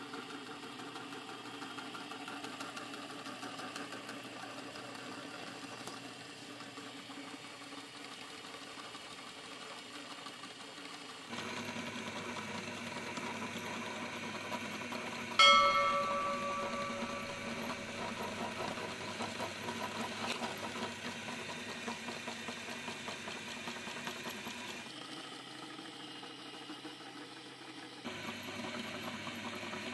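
Motor-driven meat grinder running steadily, its hum changing abruptly at several points. About halfway through, a single sharp strike rings out and fades.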